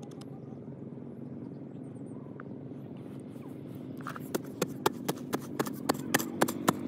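Steady low mechanical hum, joined about four seconds in by a quick, regular run of sharp knocks, about four a second, growing louder.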